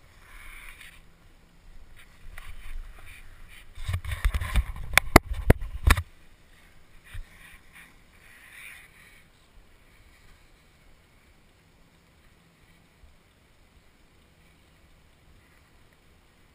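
Muffled knocks and rumble picked up by a helmet-mounted GoPro Hero HD: a cluster of sharp clacks with heavy low thumping about four seconds in, lasting about two seconds, then only faint noise.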